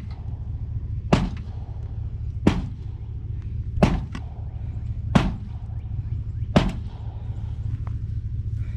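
Five heavy, evenly spaced blows, about one every 1.3 seconds, like a hammer being swung, over the steady low hum of an engine running.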